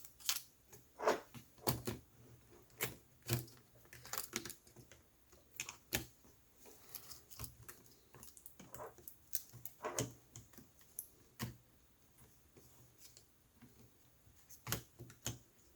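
Irregular light clicks and taps of a laptop system board being worked down into the ThinkPad X1 Yoga's chassis, with a quieter stretch before a couple more clicks near the end.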